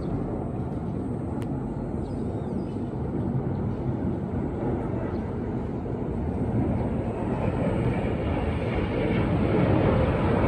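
Rumble of Kawasaki T-4 jet trainers' turbofan engines overhead as the formation pulls up into loops, growing louder over the last few seconds.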